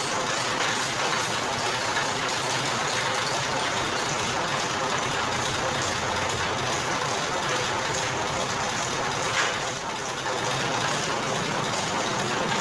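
Motor-driven sugarcane crushing machine running steadily, a constant mechanical drone with a short knock about nine seconds in.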